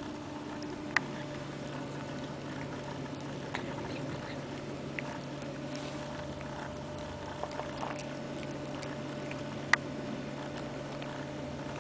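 Cat purring steadily, a low motor-like rumble, with a few sharp clicks over it, the loudest about a second in and another just before the end.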